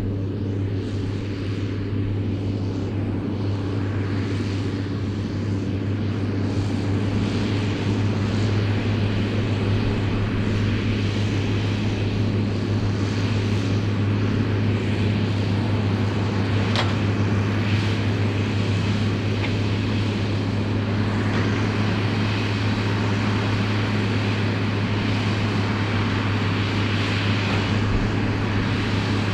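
New Holland TM155 tractor engine running steadily under load while pulling a Claas Variant 385 round baler at work, getting slightly louder about a quarter of the way in.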